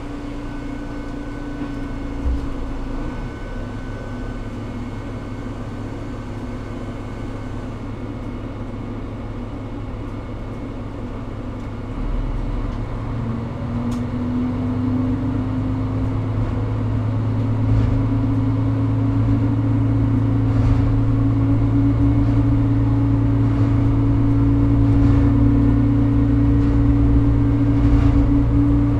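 Diesel railcar engine idling, heard from inside the driver's cab, with a single knock about two seconds in. About twelve seconds in, the engine note climbs and grows louder as the railcar pulls away and accelerates, then runs on steadily under load.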